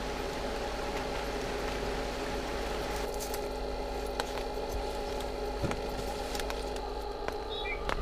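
Small electric fan of a mosquito trap running with a steady hum, with a couple of faint knocks and a short bird chirp near the end.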